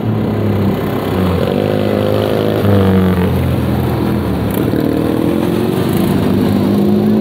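Several racing lawn tractor engines running hard at different pitches, each rising and falling as the tractors accelerate, lift off and pass close by.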